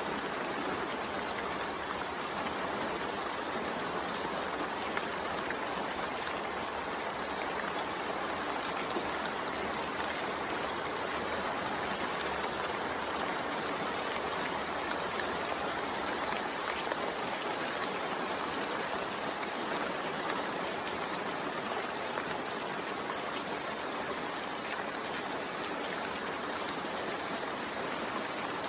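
Steady rain falling, an even hiss of many drops with no distinct events.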